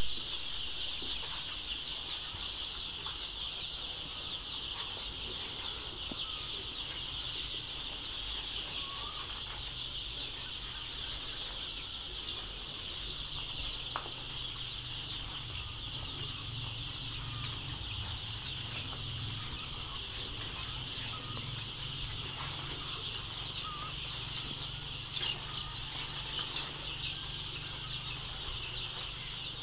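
A large flock of young layer chicks peeping continuously in a dense, high-pitched chorus. A low hum joins underneath partway through.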